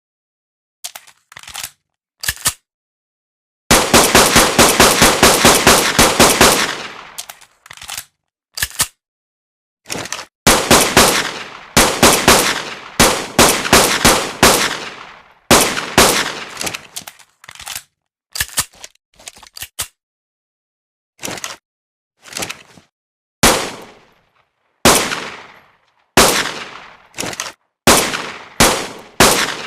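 Fabricated pistol gunshot sound effect. A fast run of shots, about six a second, starts about four seconds in. Single shots and short bursts of two or three follow, each with a brief fading ring and full silence between them.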